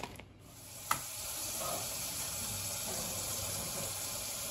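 Kitchen sink faucet running, a steady rush of water that builds up over the first second and a half, with a single sharp click about a second in.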